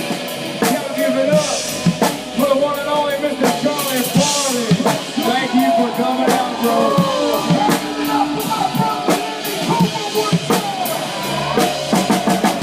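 Live band music: a drum kit keeps a steady beat of bass drum and snare hits under pitched instrumental lines.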